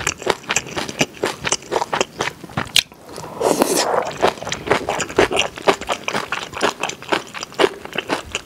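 Close-miked eating of spicy stir-fried pork and kimchi: wet chewing, smacking and crunching mouth sounds, with a louder slurp about three and a half seconds in.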